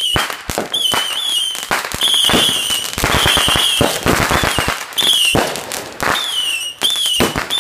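Consumer ground fireworks going off in quick succession: a string of high, wavering whistles, each about half a second long, over dense sharp pops and crackling.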